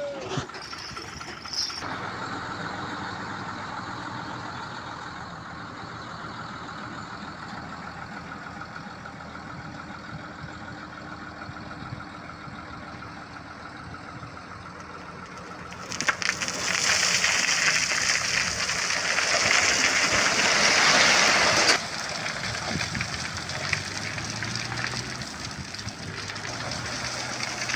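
Heavy diesel construction machinery running steadily. Past the middle, a loud rushing hiss starts suddenly, lasts about six seconds, and cuts off abruptly.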